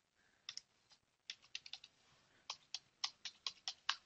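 Computer keyboard typing: a string of quiet, separate keystroke clicks, uneven at first, then a quicker, steady run of about five a second in the second half.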